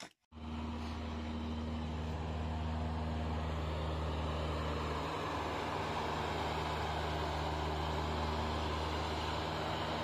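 Engine of a small ride-on double-drum road roller running steadily as the roller drives over loose fill soil to compact it. The sound cuts in abruptly a moment in and then holds an even, low pitch.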